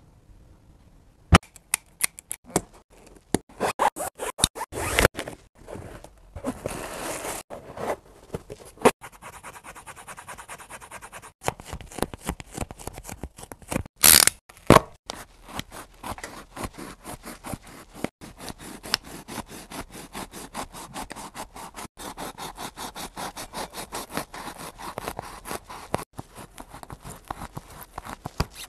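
Cutting and scraping on a basketball sneaker as it is taken apart: an irregular run of snips, scratches and sharp clicks, loudest about 14 seconds in.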